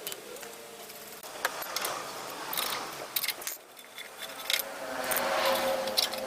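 Metal tools and engine parts clinking and scraping in hand work, with scattered sharp clicks and a busier patch of rubbing and clinking in the second half.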